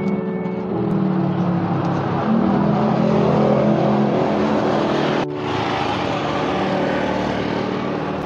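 Road traffic: vehicle engines running and passing on the street, swelling as one goes by.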